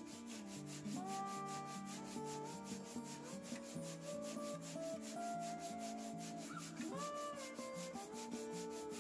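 Wood being hand-sanded with sandpaper in fast, steady back-and-forth strokes, over background music.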